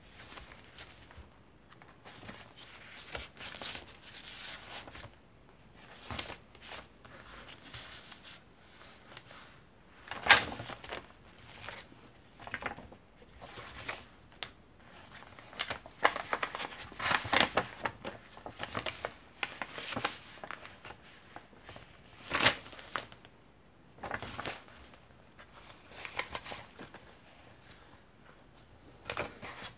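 Vintage-paper pages of a handmade layered junk journal being turned and handled by hand: irregular paper rustles and crinkles with a few sharper page flips, the loudest about ten seconds in and again near twenty-two seconds.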